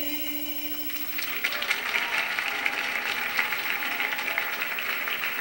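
A music track ends, and about a second in an audience starts applauding, the clapping going on steadily.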